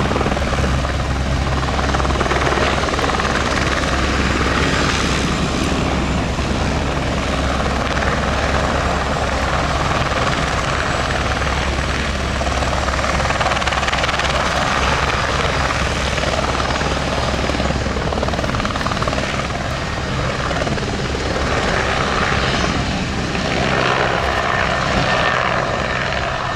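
Airbus AS355 twin-turbine helicopter hovering low: a steady main-rotor beat and turbine noise, loud and continuous, swelling a little now and then.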